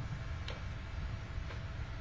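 A clock ticking steadily, one tick a second, over a low steady hum in the room.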